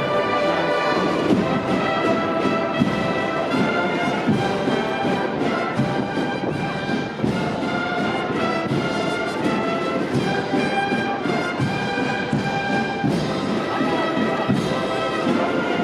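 Holy Week procession band playing, with brass carrying the melody in held notes that change every half second or so.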